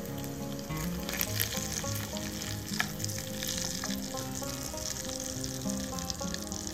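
Small shrimp frying in bubbling oil in a miniature steel pan, with a steady sizzle and scattered crackles. A wooden spoon stirs the shrimp against the pan.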